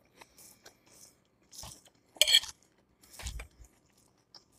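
Close-miked chewing of a mouthful of crunchy lettuce salad: scattered soft crunches and mouth clicks, with one louder sharp crunch a little past two seconds in and a dull low knock about a second later.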